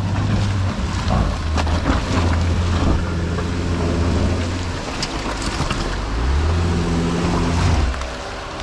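Jeep Gladiator engine revving up and down under load as it crawls through deep mud ruts, with its tyres churning the mud.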